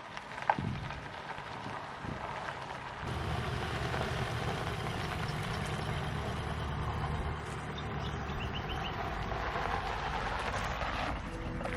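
A vehicle engine running steadily, its low rumble growing louder about three seconds in, after a brief sharp sound at the very start.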